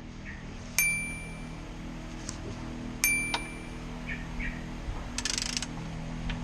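Two ringing metallic clinks about two seconds apart, like metal tools being struck or set down, each leaving a bell-like ring. A short hiss comes near the end, over a steady low hum.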